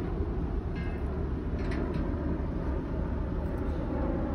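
Steady low engine rumble with no distinct events.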